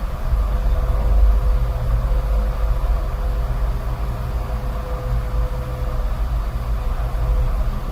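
Steady machinery rumble and hum of a car-factory production line, with a faint steady tone running through it.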